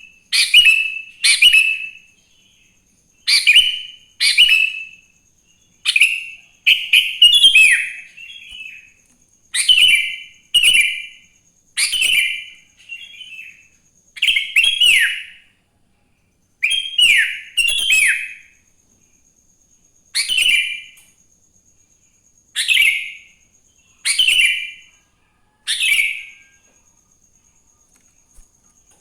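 Sooty-headed bulbul (kutilang) singing close to the microphone: a long string of short, loud chirpy phrases of about half a second each, several with quick falling notes, separated by brief pauses. There is a longer pause near the end.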